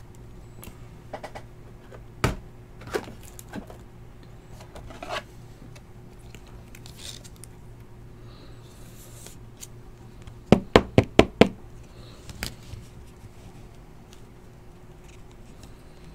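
Knocks and taps on a tabletop from cards being handled: a few single knocks in the first five seconds, then a quick run of five sharp strikes within about a second, around ten and a half seconds in, and one more knock shortly after. A steady low hum lies underneath.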